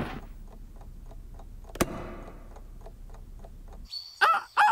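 Wind-up alarm clock ticking steadily, with a single sharp click about two seconds in. Near the end a rooster starts crowing at dawn.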